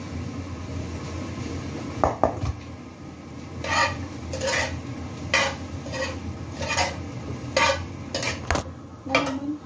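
A utensil stirring meat filling in a stainless steel pot, scraping and knocking against the metal sides. After two sharp knocks about two seconds in, the strokes settle into a steady rhythm of a little more than one a second, each ringing briefly.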